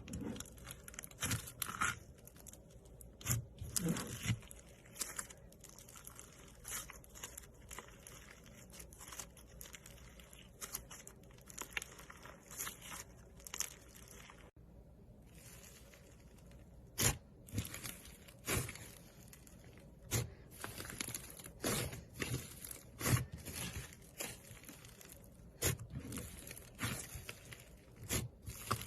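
Slime being squeezed, stretched and folded by hand, giving irregular sticky crackles and pops.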